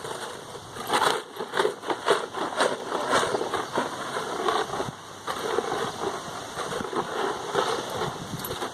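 Rocks rattling inside a plastic milk bottle, shaken and rubbed in uneven bursts of clicking and scraping, used as a sound-and-touch desensitizing tool for a horse.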